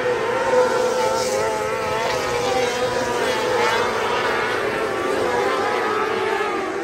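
Several 600cc micro sprint cars racing together, their high-revving motorcycle engines overlapping and rising and falling in pitch as they go round the track.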